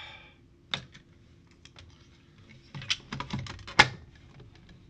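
Plastic case of a Minuteman Entrust ETR 700 uninterruptible power supply being handled as its cover is fitted back on: a single click about a second in, then a quick run of plastic clicks and knocks near the end, the sharpest just before it ends.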